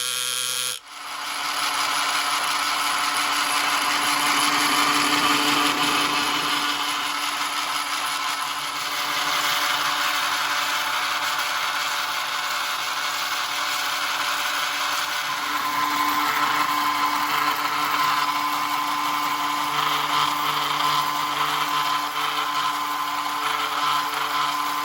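A small motor whirring steadily with gear noise, starting abruptly about a second in, with a steady hum and a higher whine that grows stronger in the second half.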